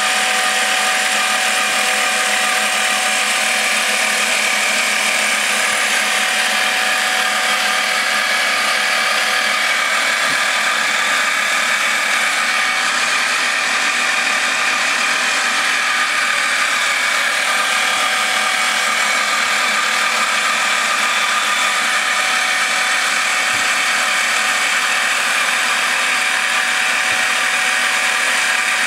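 Harbor Freight 7x12 mini lathe running steadily, its motor and gear-driven spindle giving a continuous mechanical whine.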